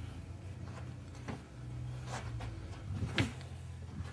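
Soft thumps and brushing from two men's footwork, clothing and a low straight punch in a sparring drill, a few short sounds with the loudest about three seconds in, over a steady low hum.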